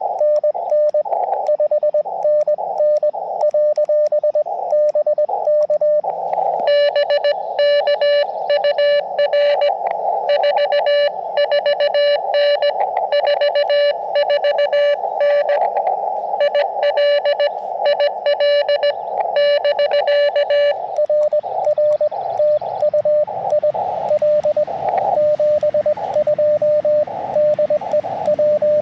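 Morse code (CW) from an Elecraft KX2 transceiver: a single tone of roughly 600 Hz keyed on and off in dots and dashes. From about 7 to 21 seconds in the code sounds brighter and buzzier. From about 22 seconds in, a hiss of band noise rises under the tone.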